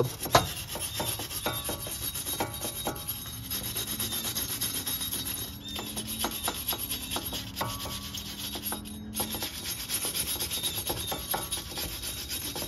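Hand wire brush scrubbing rust off a car's steel wheel hub in quick back-and-forth strokes, cleaning the hub face before a new brake rotor goes on. The scrubbing stops briefly twice.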